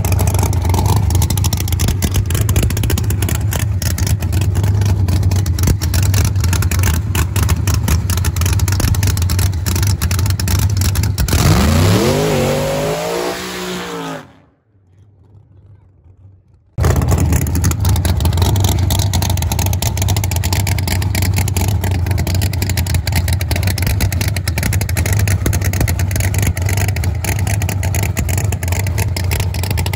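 Car engine running steadily and loudly, with a rev that rises and falls again about twelve seconds in. The engine sound cuts off suddenly around fourteen seconds and comes back just as suddenly about two seconds later.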